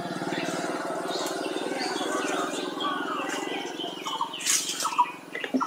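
Birds chirping in short calls over a steady, evenly pulsing small engine; the engine fades out about four seconds in, leaving a few chirps and clicks.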